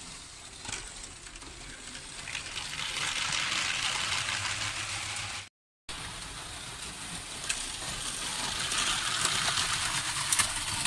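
Lego trains rolling on plastic track: a rattling hiss of wheels on the rails that swells as a train nears. It cuts out briefly about halfway, then builds again, with a few sharp clicks near the end.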